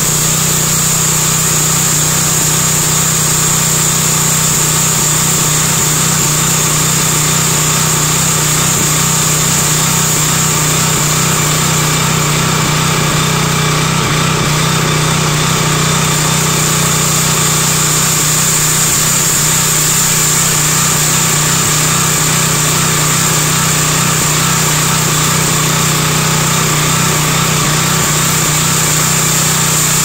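Small 8.5 hp engine running steadily under load, driving a homemade bandsaw mill as its blade cuts slowly into a log, with a steady high whine over the engine's hum.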